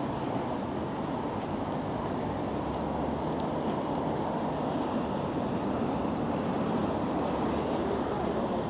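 Steady road-traffic noise at a busy junction, with small birds chirping high and faint over it through most of the stretch.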